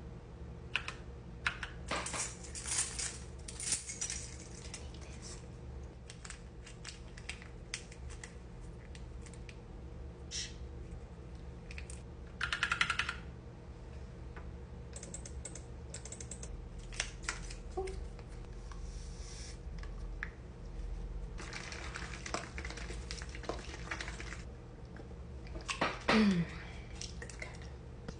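Computer keyboard being typed on in irregular runs of keystrokes with short pauses. Two brief louder noises stand out, one around the middle and one near the end.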